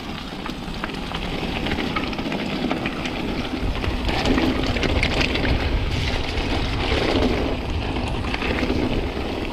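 Mountain bike riding fast down a rough forest singletrack, heard from the bike itself: a steady low rumble of wind buffeting the microphone and tyres rolling over dirt, with many small clicks and rattles from the bike bouncing over stones and roots.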